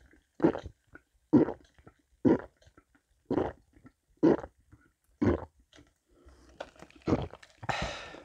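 A person gulping down iced lemon-lime soda (Narangd Cider Zero): loud swallows about one a second, six in a row, then after a short pause another, and a short hissing burst near the end.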